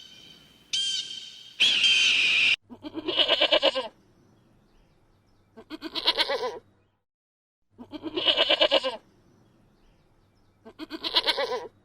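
Domestic goat bleating four times, each call about a second long with a wavering, pulsing 'meh-eh-eh'. Before the first bleat, a short, high-pitched whistling call comes and goes twice.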